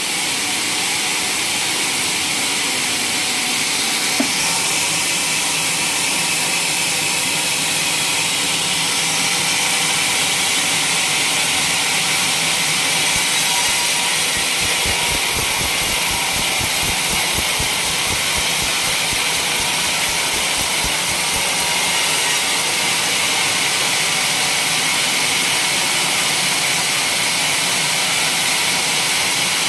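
Sawmill running, its blade sawing through waru gunung timber with a steady high hiss.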